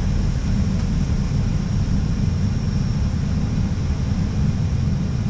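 Steady flight-deck noise inside an Airbus A320: an even low rumble from the aircraft, with a faint high, steady whine above it.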